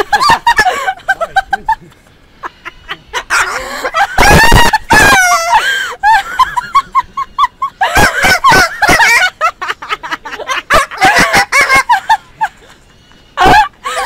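Cockatoo screeching and squawking in a string of loud harsh calls, with one long screech about four seconds in, followed by a quick run of short repeated notes.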